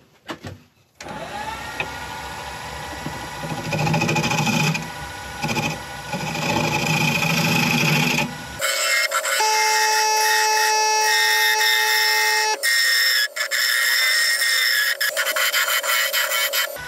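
Wood lathe running while a scraper cuts the inside of a spinning olive ash bowl, cleaning up tool marks, the cutting coming and going in louder stretches. A little past halfway the sound changes abruptly to a thinner, higher whine with steady tones.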